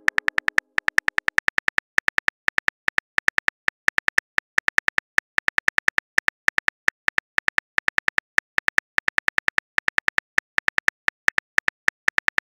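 Simulated phone keyboard clicks: a rapid, uneven run of short identical key taps, several a second, as a message is typed letter by letter.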